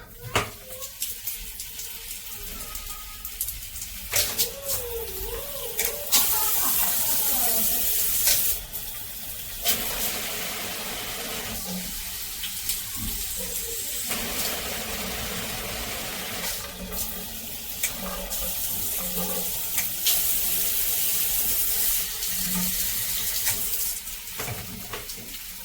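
Water spraying from a Homlord handheld filtered shower head, a steady hiss that grows and falls in strength several times as the spray is switched between its pressure modes.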